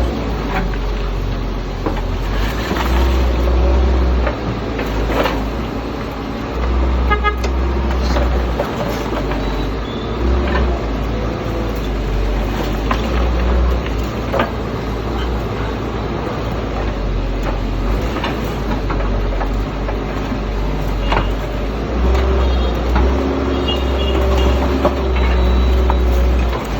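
Excavator's diesel engine running and rising and easing with load, with scattered knocks and scrapes as concrete is broken up.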